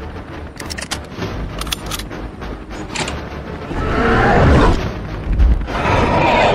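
Film sound effects: a few sharp cracks in the first three seconds, then two loud rumbling blasts about two seconds apart.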